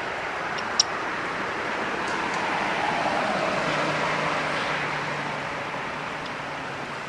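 Road traffic noise: a motor vehicle passing, its hiss swelling a few seconds in with a low engine hum and then fading. A single sharp click about a second in.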